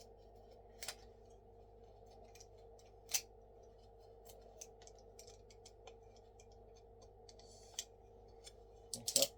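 Box cutter blade slicing and scraping leftover wood out of the top bar of a wooden DN4 beehive frame: faint scattered clicks and scrapes, with a few sharper ones and a quick cluster near the end. A faint steady hum sits under it.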